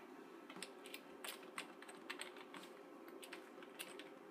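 Faint, irregular keystrokes on a computer keyboard as text is typed and deleted, over a faint steady hum.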